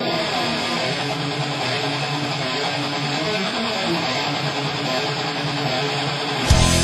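Background music of strummed guitar. Near the end a louder, fuller section with heavy bass comes in.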